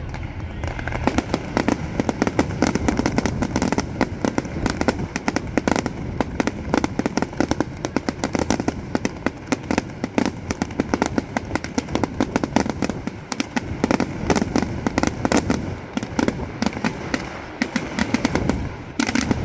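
Fireworks display: a dense barrage of crackling bangs, many per second, over a steady rumble, thickening about a second in and keeping up without a break.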